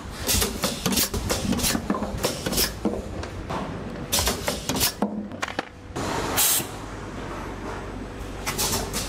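Clicks and clatter of small brass valve fittings being handled and pressed in a press fixture, over a steady low workshop hum, with short hisses about six and a half seconds in and again near the end.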